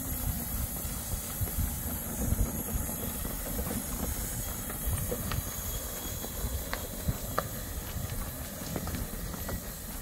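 Footsteps running along a forest path, with an uneven low rumble from the moving microphone and a few sharp clicks underfoot.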